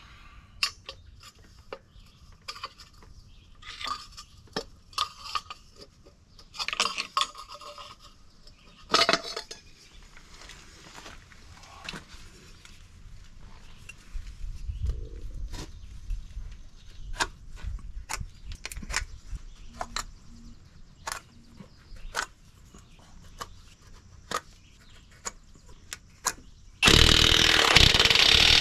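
Scattered metallic clinks and scrapes of hand tools on a truck's aluminum wheel hub as the hub cover is pried off and the hub cap bolts are handled. Near the end a Milwaukee Fuel cordless impact wrench starts running loudly on the hub cap bolts.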